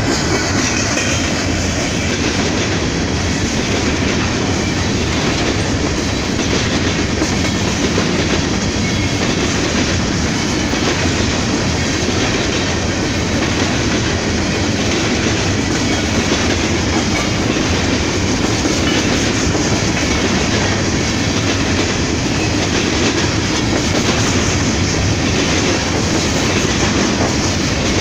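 Freight train cars rolling past, a steady loud rumble with the clickety-clack of wheels over the rail joints.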